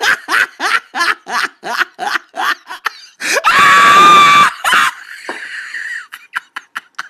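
A person laughing hard in rapid bursts, about four a second, then a loud high-pitched squeal of laughter lasting about a second, some three seconds in.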